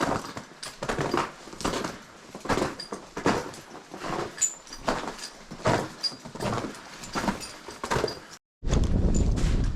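Footsteps on snow and ice, a steady walking rhythm of about three steps every two seconds. Near the end the sound cuts out for a moment and gives way to a steady low rumble.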